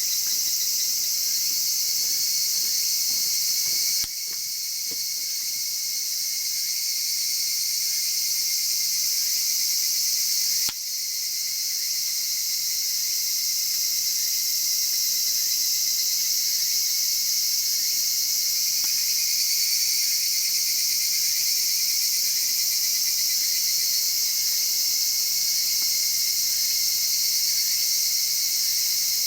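A steady, high-pitched chorus of crickets or similar insects chirring, with faint crackles from a wood fire beneath it. The chorus drops suddenly in level twice, then builds back.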